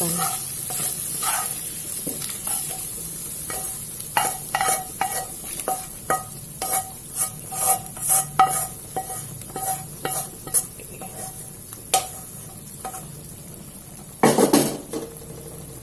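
A metal spatula scraping and tapping against a wok in a quick run of clinks, some ringing briefly, over a faint sizzle, as the sautéed spice paste is scraped out into the broth. There is a louder clatter near the end.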